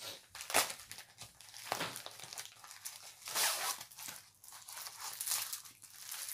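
Paper and plastic wrapping of a diamond painting kit being torn and crinkled open by hand: a few short rips and rustles, the longest and loudest about three and a half seconds in.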